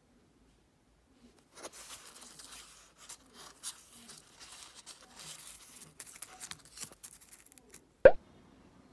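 Pressed bay leaves rustling and crackling against book pages as a hand lifts them out: a dry, papery rustle with small clicks, starting about a second and a half in. Near the end comes a single sharp thump.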